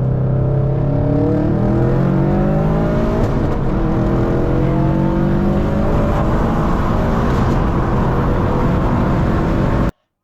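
Subaru WRX STI's turbocharged flat-four engine under acceleration, its pitch climbing steadily as it revs up. The sound cuts off abruptly near the end.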